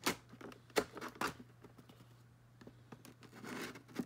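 Tape being peeled and torn off a cardboard toy box to free taped-in accessories: a few sharp clicks and scrapes, then a short tearing sound near the end.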